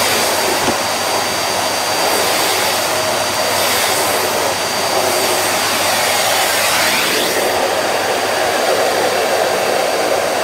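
Miele bagged cylinder vacuum cleaner running steadily, its floor head pushed back and forth over carpet, with a thin high whine over the noise of the motor and airflow.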